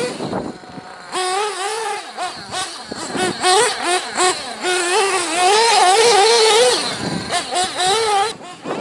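Small nitro glow engine of a radio-controlled off-road car running at high revs, a high whine rising and falling in pitch as the throttle opens and closes. It drops off briefly near the start and cuts away just before the end.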